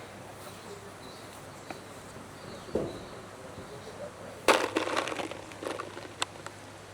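A slingshot shot striking the makeshift box target: one sharp hit about four and a half seconds in, followed by a second of crackling and rattling, and a single sharp click shortly after.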